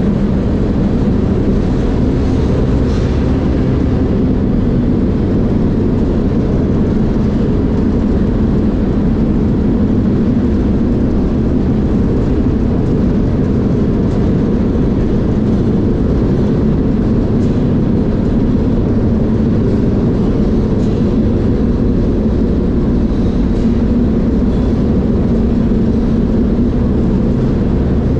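A moving freight train heard from inside a boxcar with its door open: a steady, loud, low rumble of the wheels on the rails and the rattling car body.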